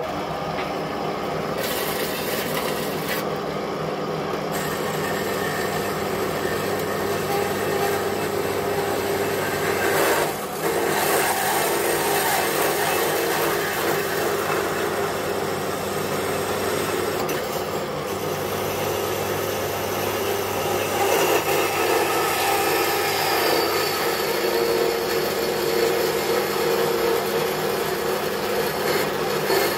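Bandsaw running and cutting through the old, corroded tubes of a car's hot-tube manifold: a steady, continuous cutting sound over a low hum, with a brief dip about ten seconds in.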